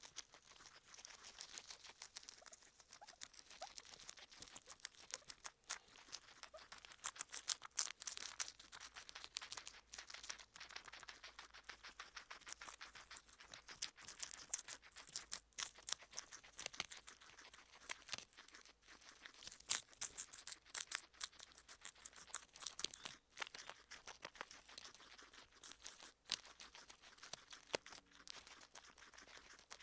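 Two guinea pigs chewing and tearing crisp lettuce leaves right at the microphone: a dense, irregular run of small crunches and leaf tearing.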